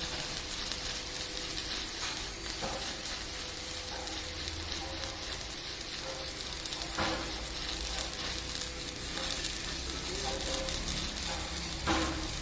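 Electric arc welding: a steady crackling sizzle, with a couple of brief louder crackles about seven seconds in and near the end.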